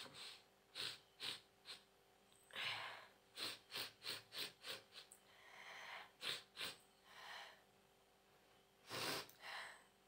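A woman sniffing black pepper powder hard up her nose: a quick run of short, sharp sniffs with a few longer breaths between them. The pepper burns her nose but brings no sneeze.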